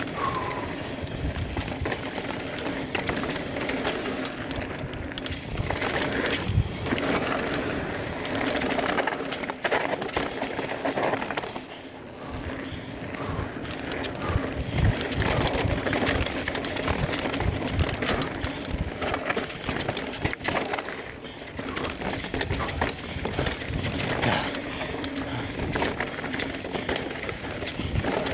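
Mountain bike descending a rough, rocky trail at race speed: tyres rumbling over dirt and rock with constant clatter and knocks from the bike's chain and frame, briefly quieter about twelve seconds in.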